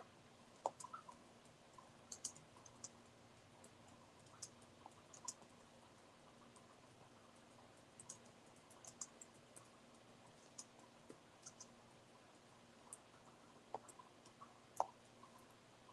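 Faint, irregular clicking of a computer keyboard and mouse, a few scattered keystrokes and clicks at a time, over a quiet room hum.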